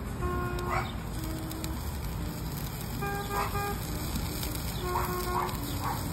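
Background music of held notes that change in a simple tune, over the steady crackle and sizzle of oysters cooking on a tabletop grill.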